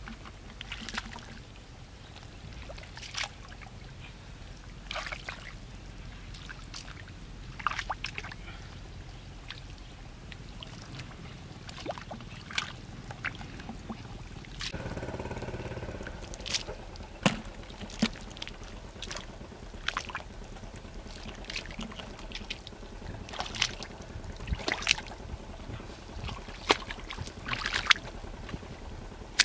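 Hands and bare feet splashing and squelching in shallow muddy water: irregular sharp wet slaps and splashes a second or two apart.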